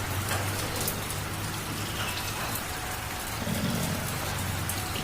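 Light rain falling steadily, with a cat's low, steady purr underneath.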